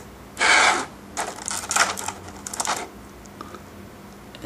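Handling noise from small plastic toy parts and a clear plastic blister tray: a loud crackle about half a second in, then a run of quick clicks and rustles for about two seconds as a hand piece is fitted onto the action figure's wrist.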